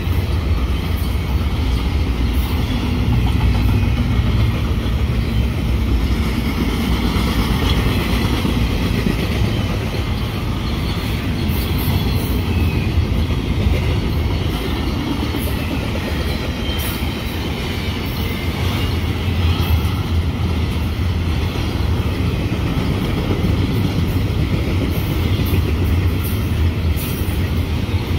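Double-stack intermodal freight train's container well cars rolling past: a steady rumble with the clatter of steel wheels on the rails.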